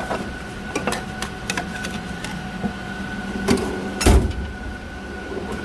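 Metal tool chest drawers being handled: light clicks and rattles, with one heavy thump about four seconds in.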